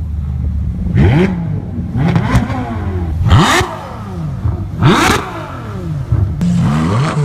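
Ferrari V12 engine revved hard in about five sharp blips, each rising quickly in pitch and falling back, over a steady low hum.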